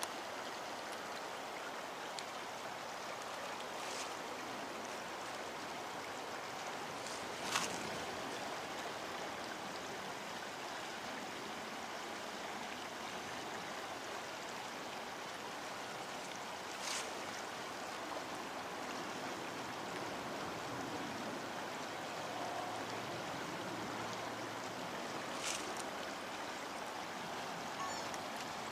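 Steady rush of river water flowing below a stone railway viaduct, with four short, sharp clicks spread through it.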